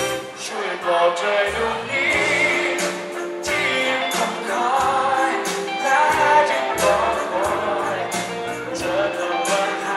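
Live pop-rock band music: a male vocalist singing over electric guitar, bass guitar and drums.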